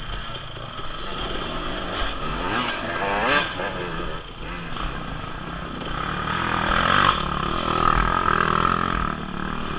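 Dirt bike engine revving up and down as the bike is ridden slowly through tight woods, with the pitch climbing and loudest in the second half. A few sharp knocks come about two and three and a half seconds in.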